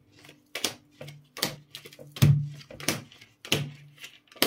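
A tarot deck being shuffled by hand: a string of about seven short, sharp card slaps, roughly one every two-thirds of a second, over a low steady hum.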